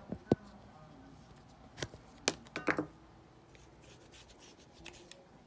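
Handling noise from a phone being gripped and moved close to its microphone: a few sharp knocks and rubs, two at the very start and a cluster around two to three seconds in.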